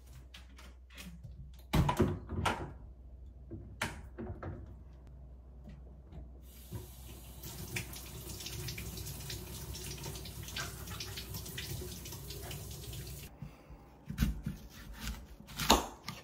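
Kitchen tap running into a stainless steel sink for about seven seconds while an apple is rinsed, with scattered clicks and clatter of handling before it. Near the end come a few sharp knocks on a cutting board as a knife goes into the apple.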